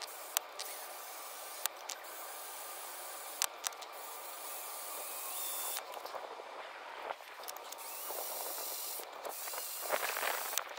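Cordless drill running at low speed, a small bit boring a pilot hole into a steel ball-joint rivet, with a few sharp clicks and a busier stretch near the end.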